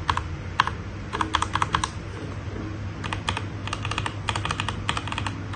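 Mechanical keyboard switches on a Langtu GK65 being pressed in quick runs of clicky keystrokes with short pauses between runs, stock switches on the number row and newly fitted Akko switches pressed for comparison.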